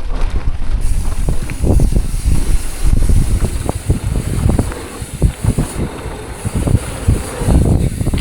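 Mountain bike descending a rough dirt trail: tyres rumbling over the ground and the bike's frame and parts rattling with frequent sharp knocks over bumps and rocks. Wind buffets the microphone throughout.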